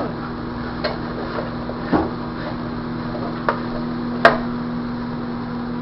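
Four short, sharp knocks of things handled on a wooden table, spread over several seconds, the loudest near the end, over a steady hum.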